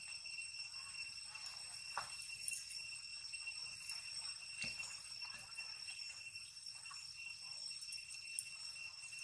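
Insects droning in one steady high tone, with a few faint clicks.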